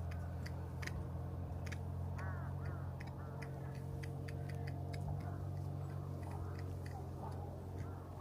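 A few short cawing calls, typical of crows at a vulture-feeding site, over a steady low hum and many scattered sharp clicks.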